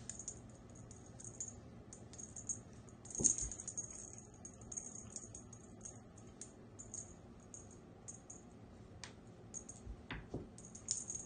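Cat toy on a wand rattling and rustling as a cat bats, grabs and bites it on a hardwood floor, in scattered light clicks and flurries. There is a soft knock about three seconds in and two more near the end.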